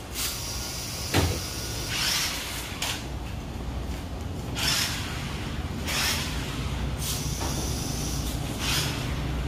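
Toy remote-control monster truck's electric motor running in short, irregular spurts as the throttle is worked, with a knock about a second in.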